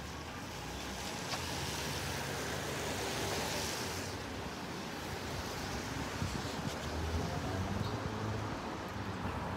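Tyres hissing on wet pavement as a vehicle passes, swelling over the first few seconds and falling away about four seconds in. A low rumble follows near the end.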